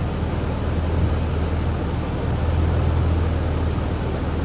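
Jeep Liberty engine idling steadily with a low, even hum. The engine has a misfire, which the mechanic thinks comes from a cylinder 2 spark plug wire that is not fully seated.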